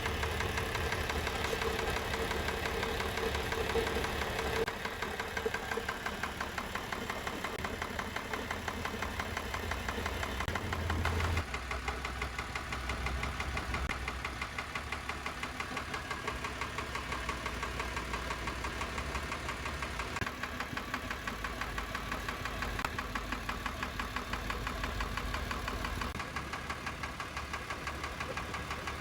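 Isuzu 6HH1 six-cylinder diesel engine running with a rhythmic knock, which the mechanic traces to cylinders 1 and 2, mostly number 1.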